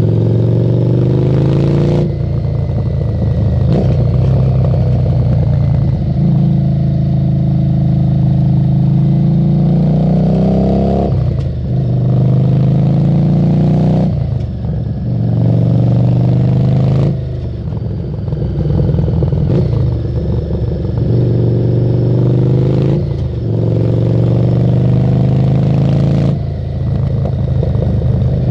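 Harley-Davidson Street 750's V-twin through a Screamin' Eagle exhaust while riding: the engine note climbs under throttle and drops back sharply several times, as through gear changes.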